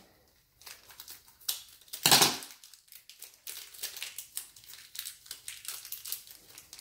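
Plastic blind-bag wrapper crinkling and crackling as it is torn open by hand, in irregular rustles with one louder burst about two seconds in.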